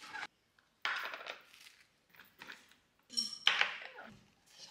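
Knife spreading guacamole on toast: a scrape of the blade across the bread about a second in, then a sharper clink and scrape near the end.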